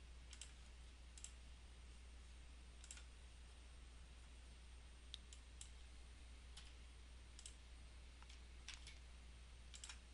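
Faint, irregular clicks of a computer mouse and keyboard, about a dozen spread through the stretch, over a low steady electrical hum.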